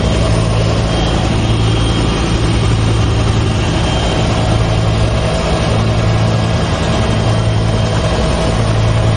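Helicopter heard from inside the cabin with the side door open: a loud, steady low drone of rotor and engine with a thin constant whine above it and an even rush of noise.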